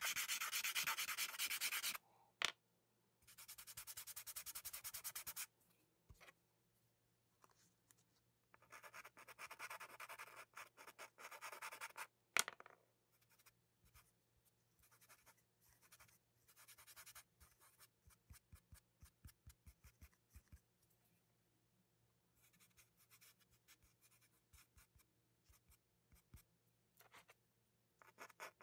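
Pastel stick scraping across paper in spells of quick back-and-forth strokes. The longest spells are in the first two seconds, from about three to five and a half seconds, and from about nine to twelve seconds; short faint strokes and a few sharp ticks fall between them.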